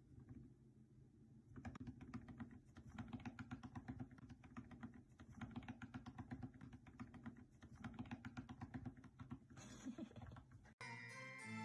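Rapid, irregular clicking taps like typing on a keyboard, starting about a second and a half in, then cut off near the end by music.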